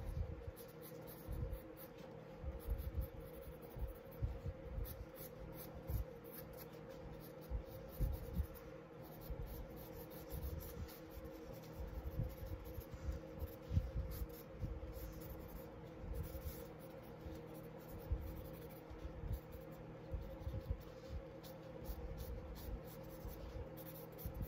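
Pencil sketching on sketchbook paper: short, irregular scratching strokes as lines are laid down, faint, over a low steady hum.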